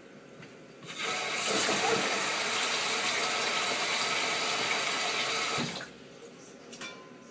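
Kitchen mixer tap turned on about a second in, a stream of water pouring into a stainless steel bowl while rice is being washed, then shut off suddenly after about five seconds.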